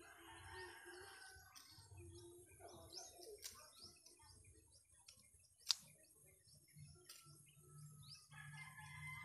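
Faint birds chirping in the background, with a few sharp clicks as small pruning shears snip ficus twigs; the loudest snip comes about halfway through.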